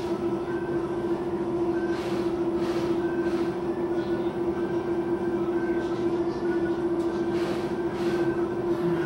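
A steady machine hum with one strong low tone. Over it come short scraping strokes of a knife cutting synthetic bag material along a cardboard pattern: three about two seconds in and two more near the end.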